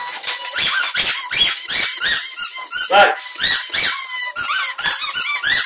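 Dogs chewing squeaky toys, giving a rapid string of short, high squeaks, several a second.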